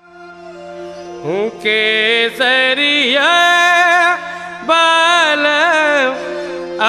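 Music fading in: a steady drone, then about a second in a voice slides up into long, ornamented sung notes held over it, in a slow Indian classical style.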